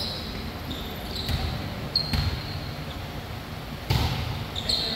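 A volleyball being struck twice during a rally, about two seconds and four seconds in, with short sneaker squeaks on the gym court floor, in a large indoor gym.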